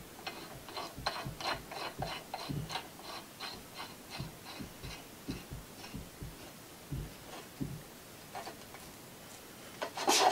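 Small brass fitting being screwed by hand into freshly tapped, tapered 1/8-inch pipe threads in a black iron tee: a faint run of light ticks, about three a second, with a few soft low knocks.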